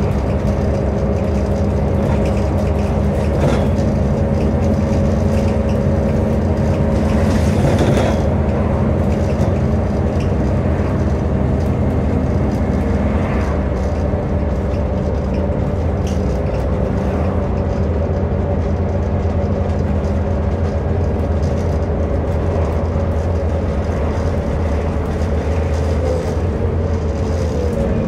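Onboard a Scania N230UD OmniCity bus: its Scania DC09 five-cylinder diesel runs at a steady pitch under way, with road noise and a couple of brief knocks from the bodywork about three and eight seconds in.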